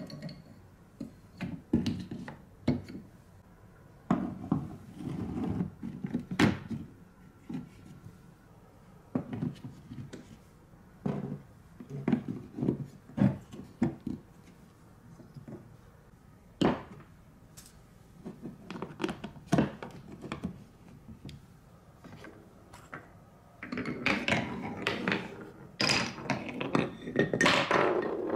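Wooden and plastic marble-run pieces being set into place: a series of separate knocks and clacks. From about four seconds before the end, a long run of rapid clattering as a marble rolls and drops through the wooden track.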